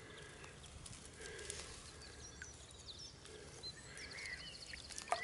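Faint bird calls: scattered short chirps over quiet outdoor ambience, with a brief rapid trill near the end.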